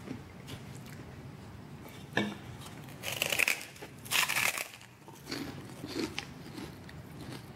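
Walnuts being chewed: a sharp crunch about two seconds in, then a run of crunches, loudest around three and four seconds in and fading after.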